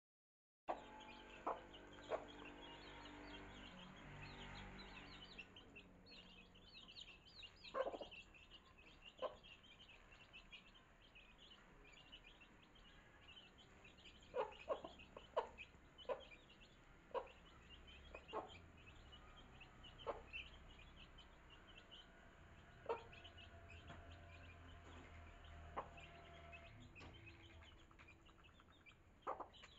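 A brood of chicks peeping constantly in short, high cheeps while feeding on scattered grain, with a dozen or so short, sharp knocks scattered among them.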